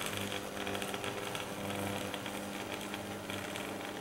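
Rivarossi HO-scale "Blue Goose" 4-6-4 Hudson model locomotive running along the track: a steady electric motor hum with a fast rattle of wheels and gears on the rails.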